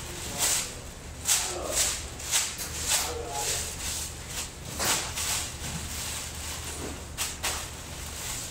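A large thin plastic sheet being pulled, shaken and bunched up by hand, crinkling and rustling in quick irregular bursts, over a steady low hum of room machinery.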